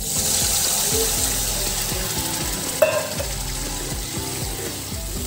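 Water poured into a hot kadhai of oily fried masala, hissing and sizzling loudly as it hits and easing off over the next few seconds. One sharp clink about three seconds in.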